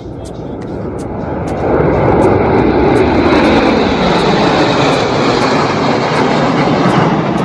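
Low-flying aircraft passing over, the engine roar swelling over the first two seconds and then holding loud.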